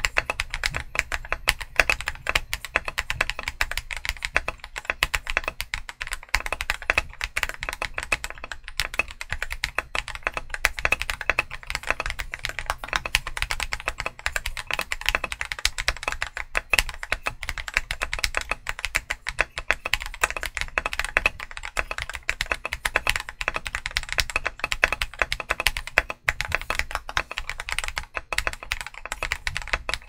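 Fast, continuous typing on a stock WK870 mechanical keyboard with Akko CS Silver linear switches and PBT XDA Canvas keycaps: a dense, unbroken stream of keystrokes.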